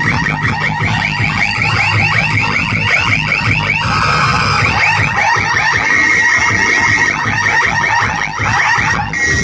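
A DJ sound system playing a loud electronic alarm-like effect: quick, evenly repeated rising sweeps over a steady low bass, with a brief break about four seconds in.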